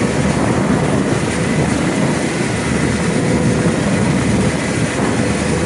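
Boat engine running steadily while underway, a constant low hum and rush with a faint steady tone above it.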